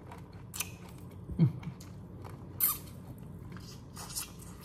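Close-up eating sounds from a crawfish boil: shells crackling and clicking as they are peeled and sucked, with chewing between. About a second and a half in there is a short low hum from the mouth.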